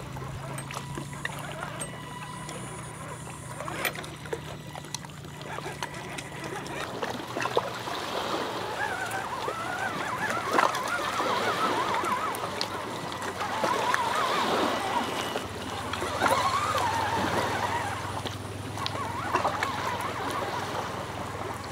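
RC rock crawler's electric motor and gears whining, the pitch rising and falling with the throttle as it crawls over gravel, with short clicks of stones under the tyres.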